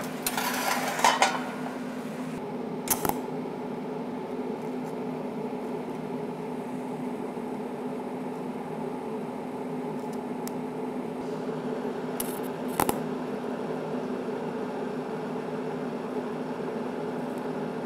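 Steady hum of a TIG welding arc from an Everlast 250EX welder fusing a mild-steel dustpan handle. A few sharp clicks and knocks come in the first second, about three seconds in, and twice a little past the middle.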